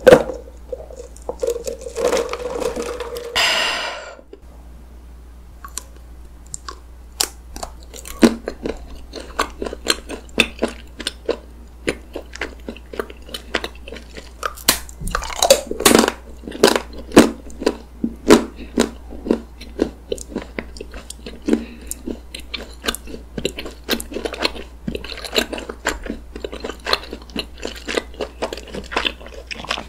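Close-miked sucking of an iced coffee through a straw for the first few seconds, rising in pitch just before it stops. Then chewing and biting of chocolate layer cake with whipped cream: wet, sticky mouth sounds with many small crunches and clicks.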